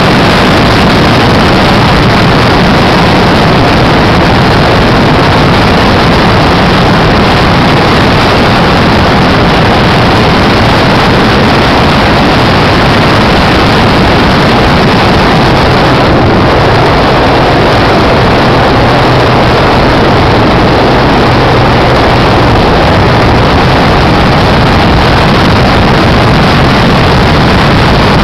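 A car driving at a steady speed on a paved road: loud, even road and engine noise, with a faint low hum that comes through in the middle.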